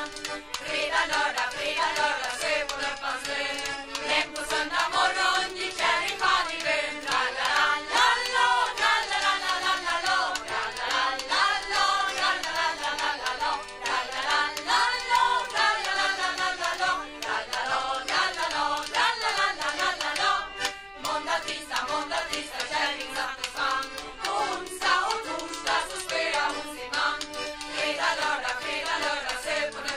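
Group of voices singing a Swedish folk-style song with acoustic instruments and a steady percussive beat, recorded on a late-1970s vinyl album.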